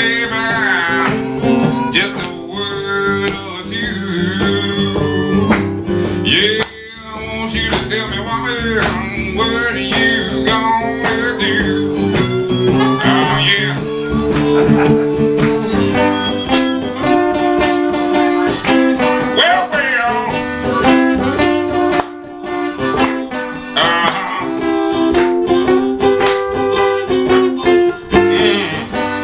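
Blues harmonica playing a solo of held and bending notes over a strummed acoustic guitar.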